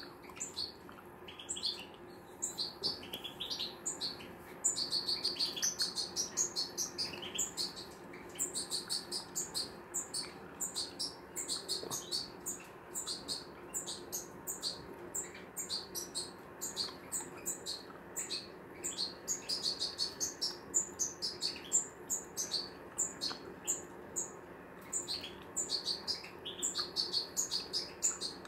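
European goldfinches singing: a steady stream of quick, high twittering chirps and trills.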